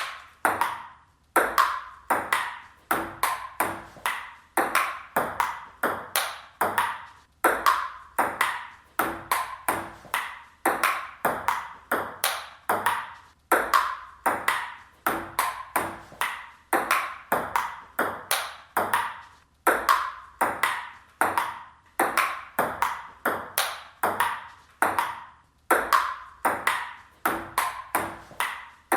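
Table tennis ball in a fast, continuous rally: sharp clicks of the ball on paddles and table, several a second, in runs where a loud hit is followed by quieter ones.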